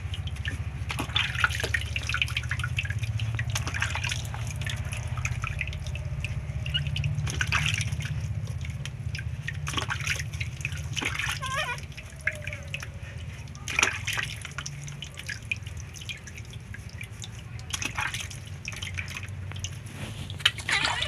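Water dripping and splashing in short, irregular spatters as a newborn baby monkey is washed by hand with a wet sponge, over a steady low hum.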